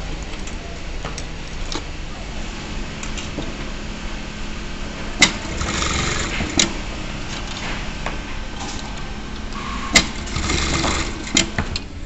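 Pattern sewing machine stitching a belt buckle strap: a steady motor hum, with a sharp click about five seconds in and another about ten seconds in, each followed by about a second of louder machine noise.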